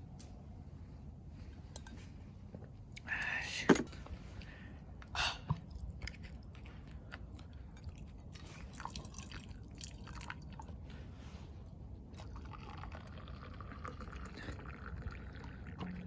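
Eating and drinking noises over a low steady hum: a short rustle ending in a sharp knock about three and a half seconds in, another brief sound about two seconds later, then faint small mouth and handling sounds.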